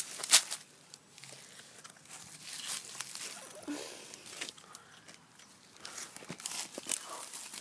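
Rustling and crackling handling noises with scattered sharp clicks; the loudest click comes about a third of a second in and several more near the end.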